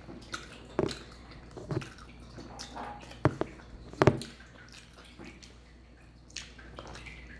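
A person chewing a mouthful of fried chicken sandwich close to the microphone: short wet smacks and clicks at irregular spacing, the loudest about three and four seconds in.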